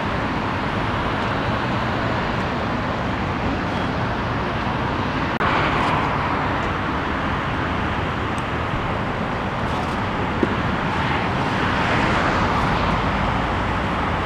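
Steady noise of motorway traffic, swelling as vehicles pass about five seconds in and again in the last few seconds. A single sharp click about ten seconds in.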